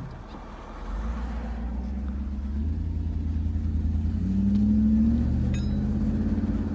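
Mercedes-Benz R129 SL's engine pulling the car along: the engine note grows louder about a second in, climbs in pitch under acceleration about four to five seconds in, then holds steady.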